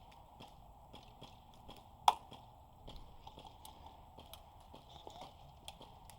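Quiet footsteps and light rustling, with one sharp crack about two seconds in.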